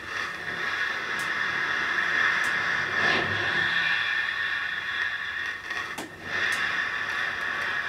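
Steady hiss and hum from an idling instrument amplifier and speaker cabinet, with a few faint clicks and handling noises.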